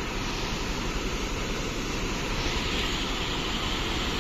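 Steady rushing of a shallow, rocky mountain river running in white-water rapids.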